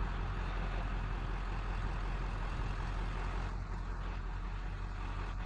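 Steady low rumble of a running vehicle engine, with an even noisy hiss over it.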